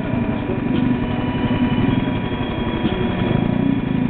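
ATV engine running steadily with an even, rapid pulsing beat.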